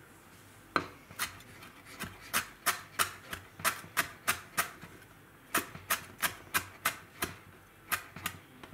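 Chef's knife chopping fresh herbs on a wooden cutting board: a run of sharp knocks, about three a second, starting a moment in and pausing briefly midway.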